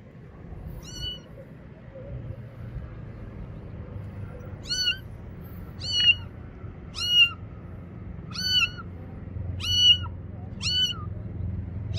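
Tabby-and-white kitten meowing for help in short high-pitched calls: one about a second in, then a run of six, roughly one a second, from about five seconds in.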